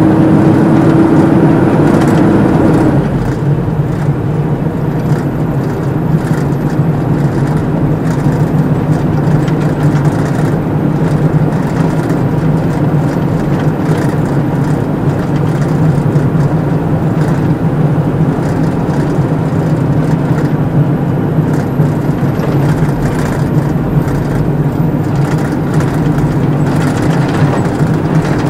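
Heavy truck's engine running steadily while it drives over a rutted, muddy track, heard from inside the cab, with scattered knocks and rattles. About three seconds in, the engine note drops to a lower pitch and holds there.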